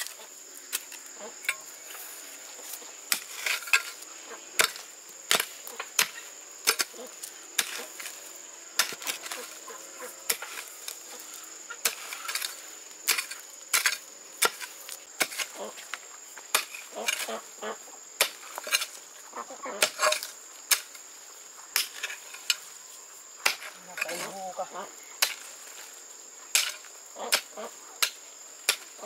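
A hand tool striking repeatedly with sharp, irregularly spaced blows about once or twice a second. Insects buzz steadily at a high pitch throughout.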